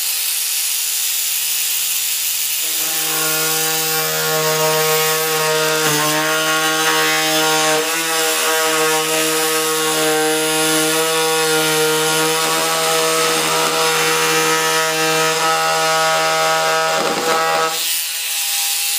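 Handheld rotary tool with an abrasive cut-off disc running and cutting through the fiberglass fuselage nose of an RC jet. It runs with a steady whine, which turns louder and harsher with grinding from about three seconds in as the disc bites, then stops shortly before the end.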